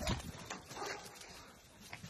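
Miniature dachshunds running and playing, with two sharp knocks in the first half second, then quieter scuffling.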